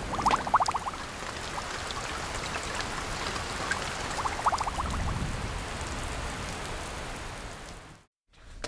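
Steady rain pouring down, with two short rattles near the start and about halfway through; the rain fades out near the end.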